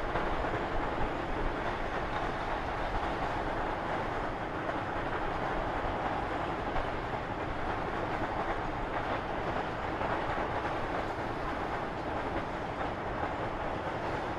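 A long rake of sugar cane bins rolling steadily past on a narrow-gauge cane railway, a continuous even rolling noise from the wagons' wheels on the track.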